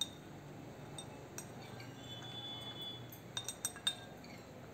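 Light clinks of a metal spoon against a glass bowl as lemon seeds are fished out of the marinade: a few single clinks, then a quick cluster a little past halfway.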